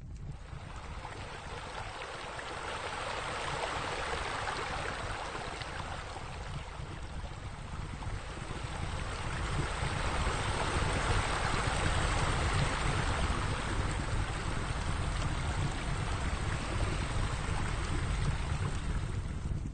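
Steady rushing of falling water, like a sheer waterfall spilling into a pool, with a low rumble underneath; it fades in at the start and grows somewhat louder about halfway through.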